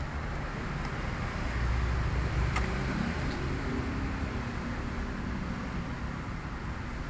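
Steady background rumble and hiss of road traffic, with a couple of faint clicks.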